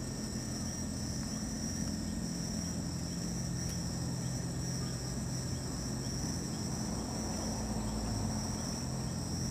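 Night insects, crickets by their sound, trilling steadily in a high pitch over a low, steady hum.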